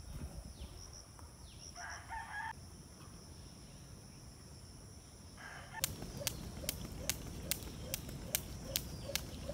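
A rooster crows once about two seconds in, over a steady high whine. From about six seconds a skipping rope slaps the ground in a steady rhythm, a little over two slaps a second.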